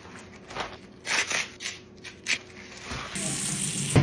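A few short rustles, then a kitchen tap running water onto kale leaves in a strainer basket, starting about three seconds in as a steady hiss.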